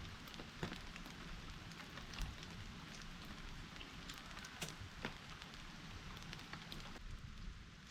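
Rain falling steadily, with scattered sharp ticks of drops striking a surface.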